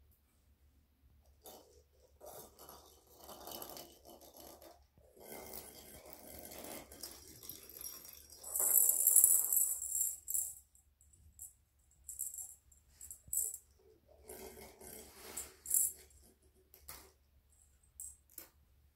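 Irregular bursts of jingly rattling close to the microphone, loudest and shrillest about halfway through, with a second spell a few seconds later.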